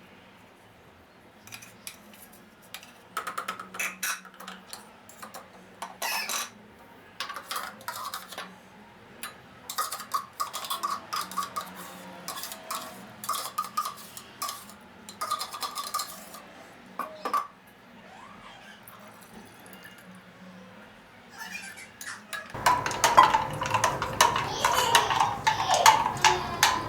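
Kitchen dishes and utensils being handled, with scattered clinks and knocks. A quieter stretch comes about 18 seconds in, then busier, louder clattering from about 22 seconds.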